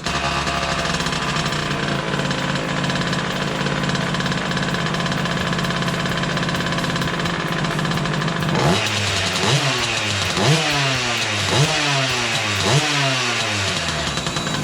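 Small 39cc two-stroke engine of a mini quad bike running steadily, then revved in about five quick throttle blips, each rising and falling in pitch, over the last few seconds.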